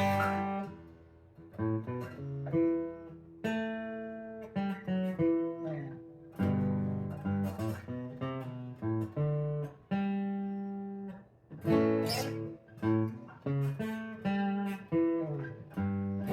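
Acoustic guitar played unaccompanied: chords and picked notes struck one after another, each ringing out and fading before the next. Recorded on a Google Pixel 7 phone's built-in microphone.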